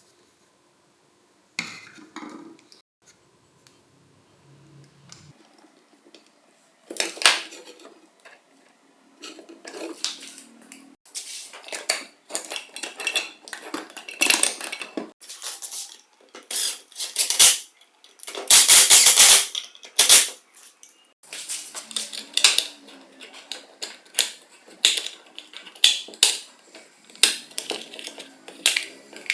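Metal parts of a power tool clinking, knocking and clattering as they are handled, in a quick irregular string of sharp clicks. A longer scraping rush comes about two-thirds of the way through.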